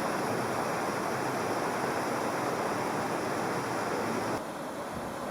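Waterfall's falling water rushing steadily, dropping abruptly to a quieter rush about four seconds in.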